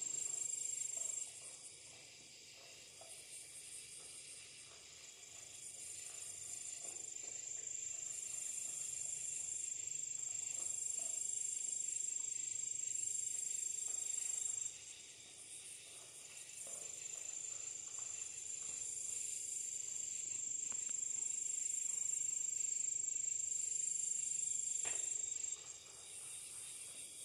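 Night insects calling: a steady high-pitched trill that cuts off a few times and starts up again, over a higher chorus that swells and fades about every two seconds.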